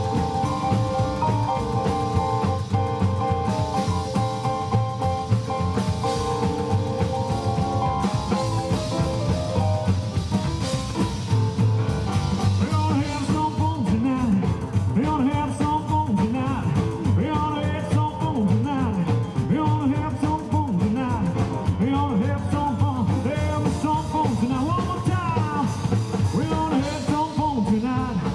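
Live rock and roll band playing, with piano, double bass and drums.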